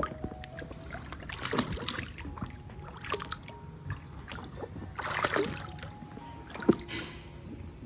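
Water splashing in a small inflatable pool, in separate splashes a second or two apart, the biggest about five seconds in.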